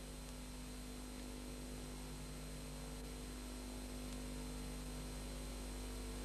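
Steady electrical hum with an even hiss, the background noise of the recording, with nothing else happening.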